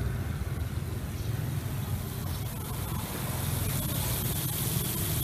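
Hiss of a T900 rotary sprinkler's fine spray, growing louder about three seconds in, over a steady low rumble.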